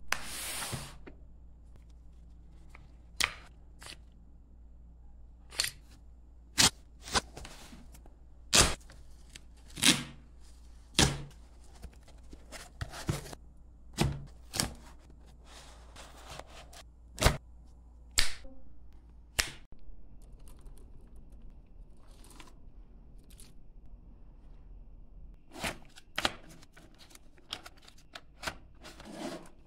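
Cardboard boxes of .32 ACP cartridges being handled and opened by gloved hands: a string of separate knocks, taps and scrapes a second or two apart, with quiet in between, and a quicker run of rustling and clicks near the end.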